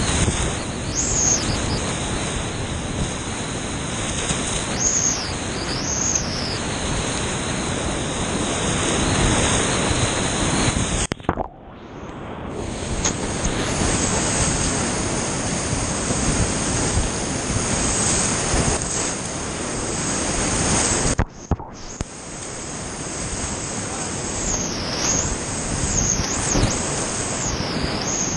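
Brown whitewater rapids at high water rushing and splashing around a kayak and paddle, loud and continuous. Twice, about a third and about two-thirds of the way through, the sound cuts out for a moment and then comes back.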